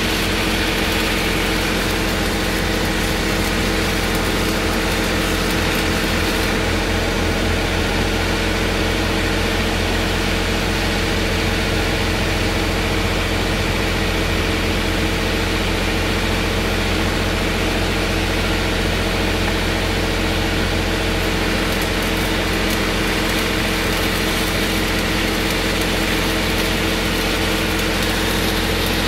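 Stick-welding arc crackling and sizzling on a 4-inch steel pipe joint. It stops about six seconds in and starts again about seven seconds before the end, over a steady engine hum that runs the whole time.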